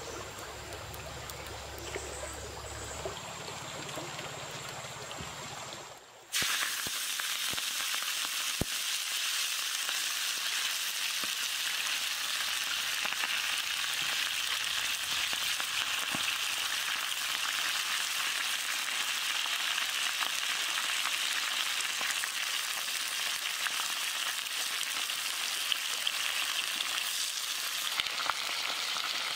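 Cooking oil trickling onto a hot earthenware pan. About six seconds in, it switches abruptly to a steady, loud sizzle of green vegetables frying in the hot oil.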